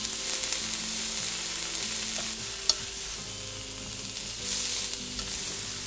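Sliced fresh ginseng sizzling in oil in a nonstick frying pan over low heat, with one sharp click partway through.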